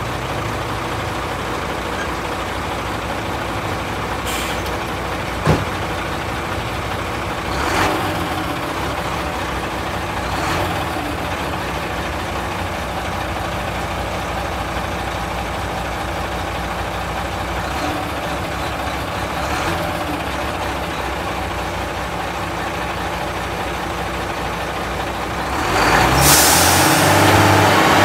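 UD Quester tractor-trailer's diesel engine running steadily, with short air-brake hisses a few times. Near the end a louder hiss comes and the engine runs harder as the truck pulls away.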